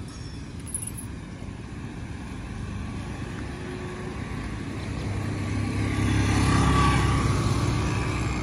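Street traffic: steady road noise, with a passing motor vehicle growing louder from about halfway through, loudest about six to seven seconds in, then easing off.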